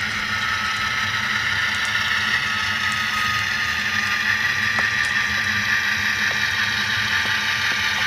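HO-scale Kato GE AC4400CW model diesel locomotive running with its sound decoder playing diesel engine sound, over the whir of its motor and gears. A thin whine slowly drops in pitch, and scattered clicks come from the wheels crossing rail joints and turnouts.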